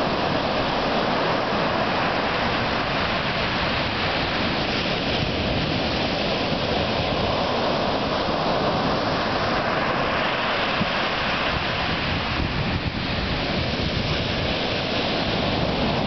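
Ocean surf breaking on a sand beach: a steady, loud wash of waves, with wind buffeting the microphone as a low, uneven rumble.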